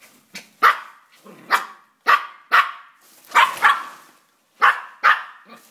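Yorkshire terrier barking, about eight short barks, some in quick pairs.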